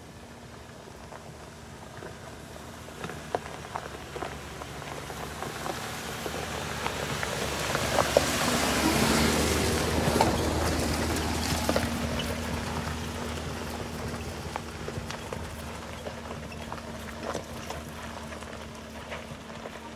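Jeep on a wet trail with water washing and pattering over the body, swelling to its loudest about halfway through and then fading, with scattered sharp drips and ticks over a faint steady hum.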